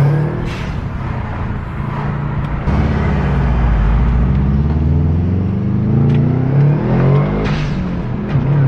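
Subaru WRX STI's turbocharged boxer flat-four through an Invidia downpipe and XForce cat-back exhaust, revving, its pitch rising and falling several times, with a few short sharp cracks in between.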